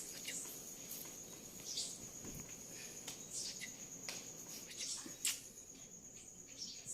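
A cricket's steady, unbroken high trill, with scattered short rustling clicks over it.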